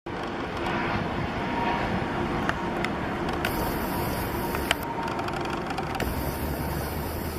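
Jet airliner engines running steadily, with a deeper rumble building about six seconds in, and a few sharp clicks.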